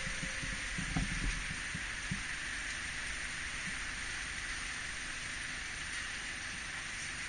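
Quiet city street ambience with the bicycle at a standstill: a steady faint hiss with a few soft low knocks about a second in.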